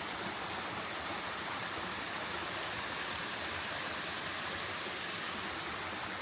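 Steady rush of falling water from a waterfall and its stream, an even hiss-like noise with no breaks.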